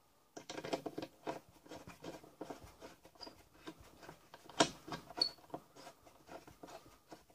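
Irregular small clicks, scrapes and rustles of hands fitting a Nicro solar vent into a boat's deck hatch, with a sharp knock about four and a half seconds in and a couple of brief high squeaks.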